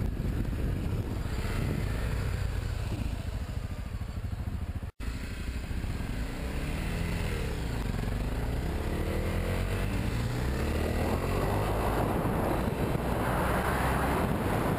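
Dual-sport motorcycle engine running under helmet-camera wind noise, the revs rising and falling as the bike speeds up and changes gear. The audio drops out for an instant about five seconds in.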